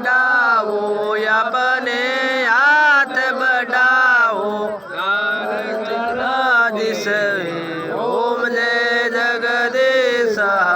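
Hindu devotional aarti being sung in long, gliding, held notes with barely a break, the voice wavering up and down in pitch.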